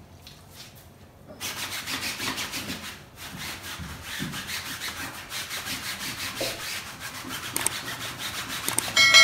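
Rhythmic scrubbing strokes on the frame of a Mastella swing bassinet, starting about a second and a half in. Just before the end, a sharp ringing clang, the loudest sound.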